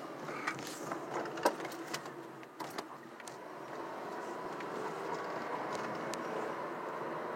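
Car driving, heard from inside: steady road and engine noise that slowly grows louder, with several sharp clicks and knocks in the first three seconds.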